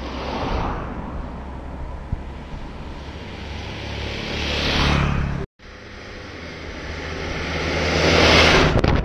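Road traffic passing close by: a motorcycle approaching and passing about five seconds in, then, after an abrupt cut, an Isuzu light truck approaching and passing near the end, each swelling to a peak of engine and tyre noise.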